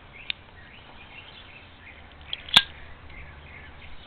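Pro-Tech Ciabatta spring-assisted knife's blade and pin-lock mechanism: a light click near the start, then one sharp metallic click about two and a half seconds in.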